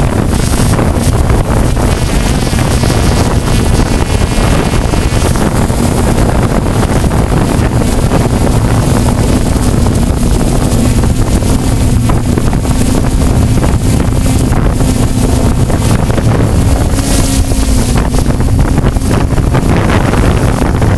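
DJI F550 hexacopter's electric motors and propellers droning steadily, heard up close from the GoPro mounted on it, with heavy wind buffeting on the microphone. A faint steady hum rises out of the drone from about halfway through and fades near the end.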